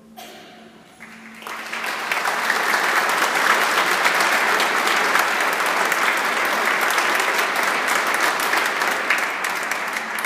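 Audience applause, swelling in about a second in as the band's last note fades, then holding steady.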